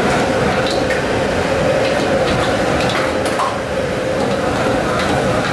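Noodles stir-fried in a carbon-steel wok over a gas wok burner: the burner runs with a steady loud rush while the wok is tossed and a metal ladle clinks and scrapes against the pan.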